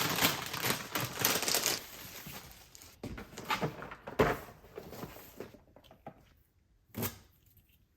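Packaging rustling for about two seconds, then a few knocks of a boxed item being handled and set down, with one last knock near the end.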